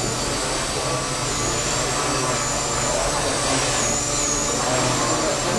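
Gaui Hurricane 200 micro electric RC helicopter in flight: a high, thin whine from its motor and rotors that wavers up and down in pitch, over a steady wash of noise.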